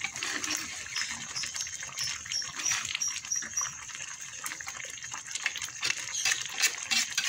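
A metal spatula stirs and scrapes a wok of thick spiced sauce, which crackles as it simmers, with many small clicks. A run of short, high chirps comes about two seconds in.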